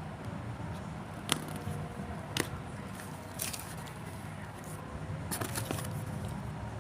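Hands handling a watch and its packaging: a few sharp clicks and light scraping, with a cluster of clicks near the end, over a steady low hum.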